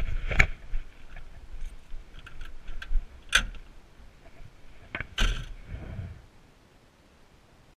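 Handling noise on a dog-harness-mounted GoPro: scattered knocks and rustles as a Siberian husky shifts about in a car's back seat. The sound stops near the end.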